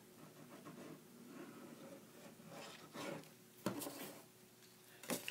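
Faint scraping of a liquid glue bottle's tip drawn across cardstock, then a few light taps and paper handling as the card is pressed down by hand.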